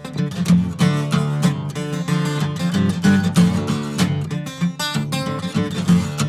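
Acoustic guitar strummed in a steady rhythm, playing the instrumental intro to a song before the vocals come in.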